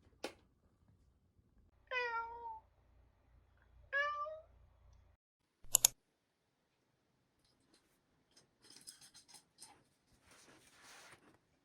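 Domestic cat meowing twice, about two seconds apart, each meow short and falling slightly at its end. A sharp click follows shortly after, then soft rustling and light clicks near the end.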